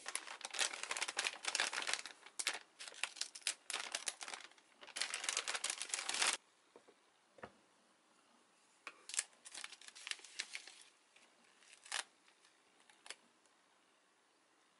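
Dense rustling of bedding for about six seconds. Then it goes quieter: a soft knock as a mug is set on a cork coaster, short bursts of paper crinkling as a drip-coffee bag is opened, and a few light clicks.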